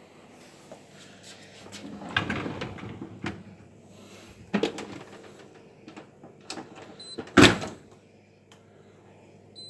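Dishwasher being closed up and set going: rattles and knocks, then the door shut with a loud thud about seven seconds in, with short high control-panel beeps around the thud and again near the end.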